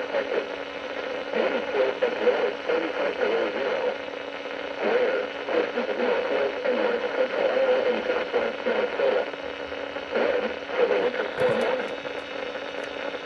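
Radio broadcast received through heavy static: a garbled, unintelligible voice under steady hiss and hum, with a few sharp clicks near the end.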